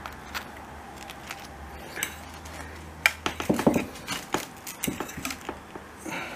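Utensil tapping and scraping on a glass plate as pieces of crisp-baked minced-meat börek are served onto it. A quick run of clicks and clinks comes about three seconds in.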